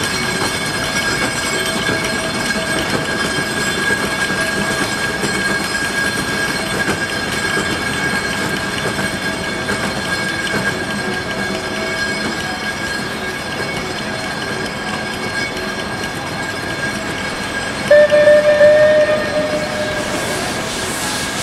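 Mount Washington Cog Railway steam locomotive No. 9, built in 1904, working as it climbs away from the base station, with a steady high tone running throughout. About eighteen seconds in, a short whistle blast of a second and a half rises above it.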